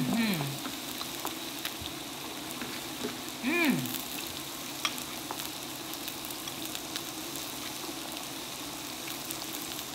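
Beef strips sizzling on the hot grill plate of an electric hot pot and grill combo: a steady hiss with small pops. A short hummed voice sound comes right at the start and again about three and a half seconds in.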